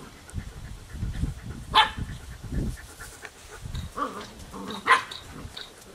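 Eight-week-old puppy giving two short, sharp barks about three seconds apart.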